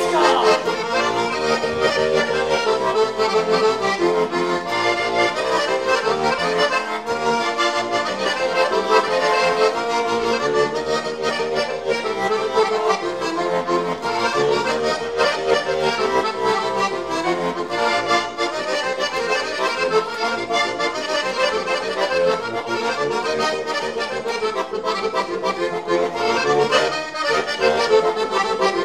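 Heligónka, a Slovak diatonic button accordion, playing an instrumental folk tune solo, with a steady rhythm of chords and melody.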